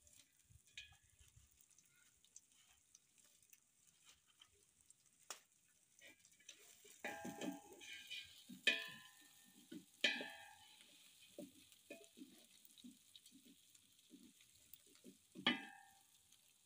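A long wooden spoon stirring pilau in a large aluminium pot, scraping and knocking against the pot's sides and bottom in irregular strokes. The strokes are busiest in the middle, with one sharper knock near the end.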